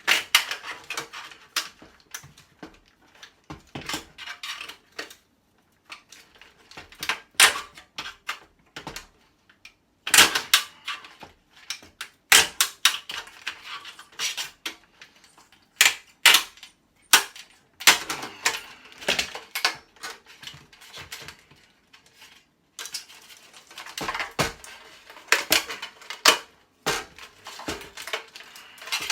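Plastic and metal parts of an electronic device being forced and broken apart for scrap: irregular clicks, cracks and clattering, with a few short pauses.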